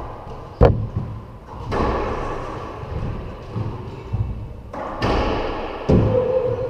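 Racquetball rally: the ball is struck by racquets and rebounds off the court walls, about four sharp smacks that echo in the enclosed court.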